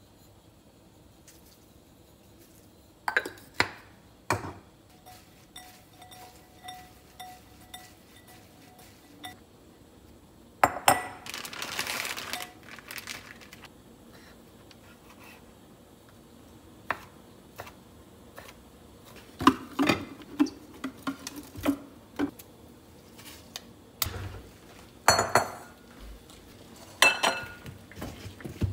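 Kitchen prep handling sounds: scattered clinks of utensils and dishes against a glass mixing bowl, a few seconds of rustling about a third of the way in, and a run of sharp knocks on a wooden cutting board while ham is sliced.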